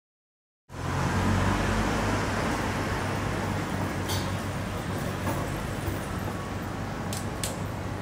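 City street traffic noise, a steady hum of passing cars, starting just under a second in. A few short sharp clicks come through it, one near the middle and two near the end.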